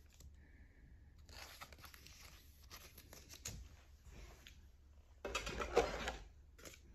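Packaging of a Pokémon trading card box rustling and tearing as it is unpacked by hand, quietly at first, then louder and denser for the last couple of seconds.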